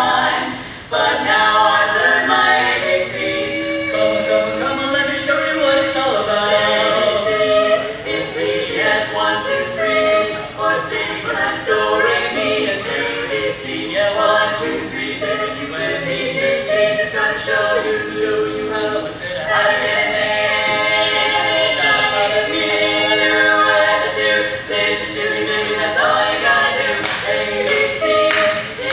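Women's barbershop quartet singing a cappella in close four-part harmony, with claps coming in near the end.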